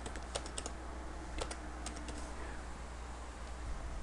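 Computer keyboard typing: a quick run of faint keystrokes about half a second in and two more about a second and a half in, over a steady low hum.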